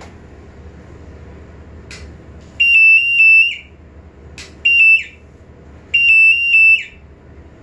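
A pipe-coating holiday detector's alarm sounding in three bursts of high-pitched electronic beeps, as its high-voltage electrode crosses pinholes in the pipe's insulating coating: each burst signals a coating fault. A few sharp clicks come between the bursts.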